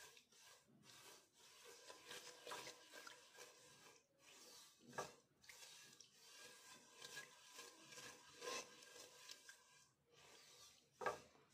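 Faint scraping and rubbing of a silicone spatula stirring undissolved sugar and water in a nonstick pan, the grains rasping against the pan, with a few slightly louder strokes.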